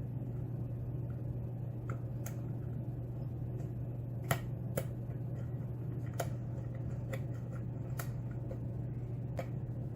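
Light, irregular clicks from a lock pick and tension wrench working the pins inside a Schlage pin-tumbler lock cylinder during single-pin picking, about eight ticks spread over several seconds. A steady low hum runs underneath.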